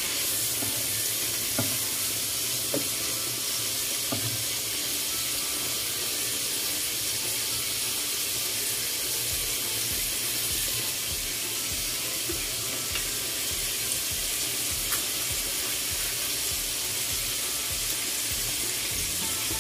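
Yardlong beans and pork sizzling steadily in oil in a wok, a constant frying hiss. There are a few light spatula knocks against the pan in the first few seconds.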